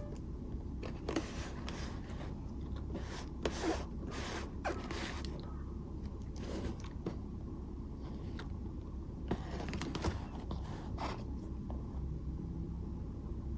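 Scissors cutting into and handling a multi-layer activated-carbon disposable face mask: irregular short snips and scrapes, a dozen or so, with pauses between them.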